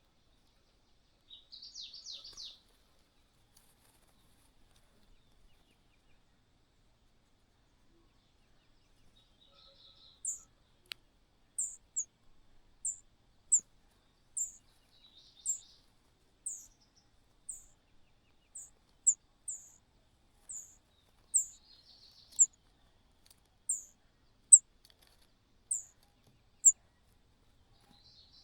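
Small bird giving short, very high-pitched call notes, about one a second, starting about ten seconds in. There are a few brief, softer scratchy bursts in between, the first near the start.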